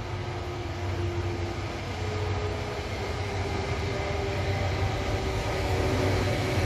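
Korail electric locomotive hauling a Mugunghwa-ho passenger train as it comes in toward the platform: a low rumble with a few steady whining tones over it, growing steadily louder as it nears.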